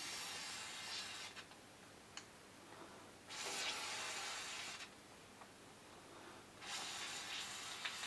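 Aerosol spray can with a straw giving three bursts of spray into an engine block's cylinder bores, each a hiss of a second or two, wetting the bores with lubricant ahead of honing.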